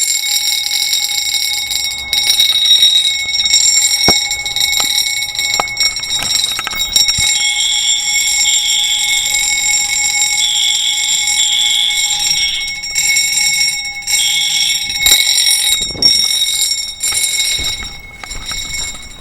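A building fire alarm system is in alarm during a test, its sounders going off loudly and without a break, with several steady high tones. The system has tripped on zone one. The sound eases off in the last second or two.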